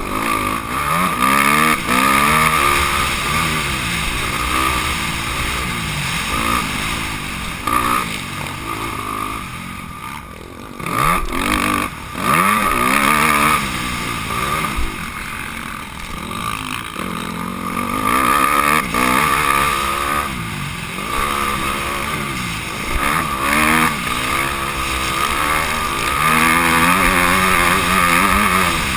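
Honda CRF250R's single-cylinder four-stroke engine revving hard as the motocross bike is raced over a dirt track, its pitch climbing and falling again and again through the gears. The engine note drops away briefly about ten seconds in, then picks up again.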